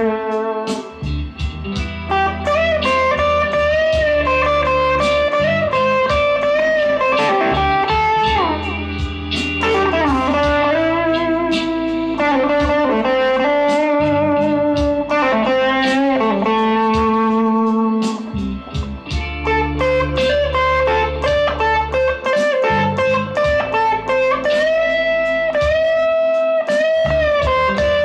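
Fender Player Stratocaster HSS Plus Top electric guitar playing a lead melody, with held notes and string bends that glide in pitch, over a low steady accompaniment.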